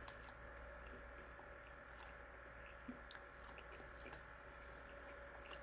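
Faint chewing: a person eating a sauced chicken nugget, a few small soft clicks of the mouth over a low steady hum.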